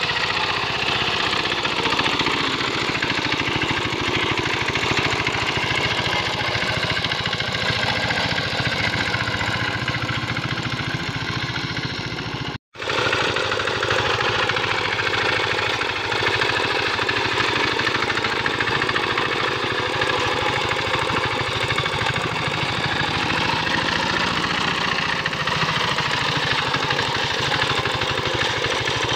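Small single-cylinder diesel engine of a Quick Capung Metal two-wheel hand tractor running steadily under load as it ploughs a flooded rice paddy. The sound drops out for an instant about twelve seconds in, then carries on the same.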